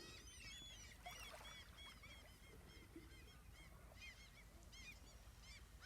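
A flock of birds calling faintly, many short chirping calls overlapping continuously, over a low steady rumble.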